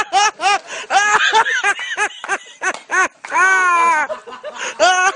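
A person laughing hard in quick, high-pitched bursts of about four or five a second, with one longer drawn-out falling note a little past the middle.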